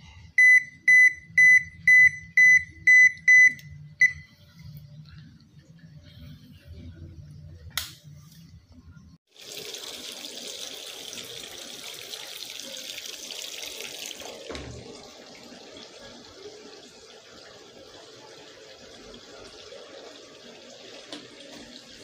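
A washing machine control board's buzzer beeps about eight times at a high, steady pitch, roughly twice a second, over a low hum. About nine seconds in, water starts rushing into the tub of a Toshiba AW-A820MM 7.2 kg top-loading washing machine as it fills. The rush is loudest for the first few seconds and then settles to a steadier flow.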